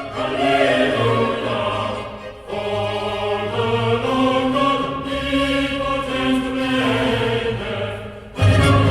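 Choral music: voices singing long held notes over a deep bass line, growing louder near the end.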